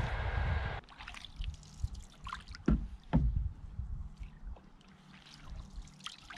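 Canoe paddle working the water: small splashes and drips off the blade, with two sharper splashes about three seconds in. For the first second a louder steady rush is heard, which cuts off suddenly.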